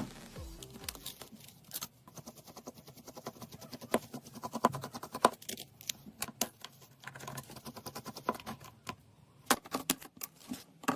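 Small hard clicks and taps of hand tools working on a Xiaomi 11 smartphone during repair. A fast run of light ticks comes through the middle, with a few sharper single clicks near the end.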